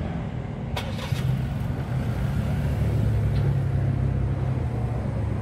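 The Ford Focus police car's driver door shuts with a sharp thump just under a second in, then the car's engine note grows louder as it pulls away.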